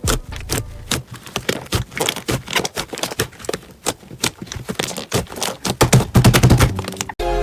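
Slime being squeezed and poked by hand, making a fast, irregular run of sticky clicks and pops. Music starts suddenly near the end.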